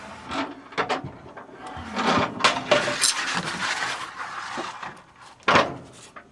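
Manual sheet-metal finger brake being worked to fold 5052 aluminium sheet: metal clicks, then a long scraping rub as the bending leaf swings up, and one loud clank about five and a half seconds in.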